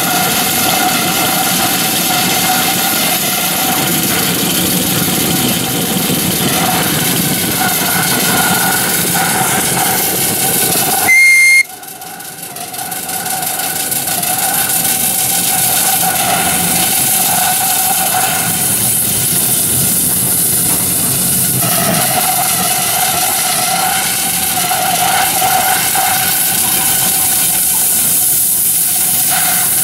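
2-inch-scale Ransomes compound traction engine model in steam, hissing steadily. About eleven seconds in comes one short, high-pitched whistle blast, the loudest sound, which stops abruptly.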